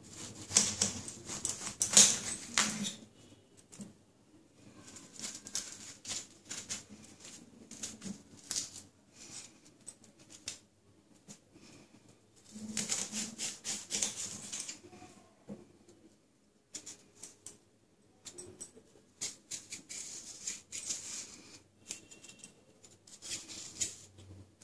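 Kitchen knife cutting through a gourd and scraping out its soft, seedy pulp: short runs of crisp scraping and slicing, loudest about two seconds in, with quiet gaps between.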